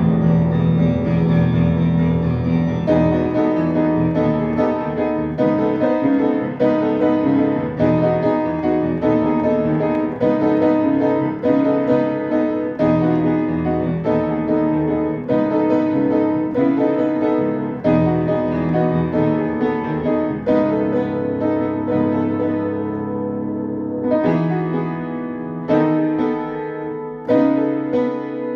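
Piano music: chords struck in a steady pulse, each ringing on after the strike, thinning to a few separate chords near the end.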